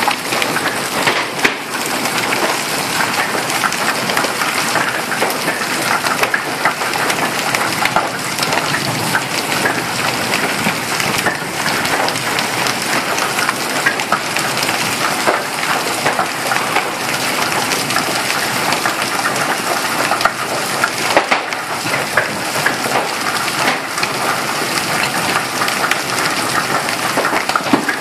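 Hailstorm: a dense, steady clatter of hailstones and rain striking the ground and hard surfaces, with sharp individual hits from larger stones throughout.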